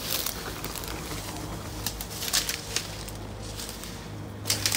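Footsteps crunching over dry ground: a scattered run of irregular crackles, loudest about two and a half seconds in and near the end, over a faint low hum.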